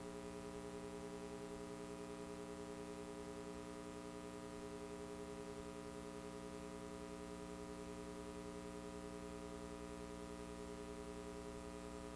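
A faint, steady hum made of many held tones stacked together, unchanging in pitch or level.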